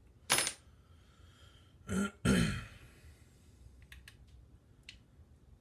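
A man clearing his throat and coughing: three short harsh bursts, the last the loudest, followed by a few faint clicks.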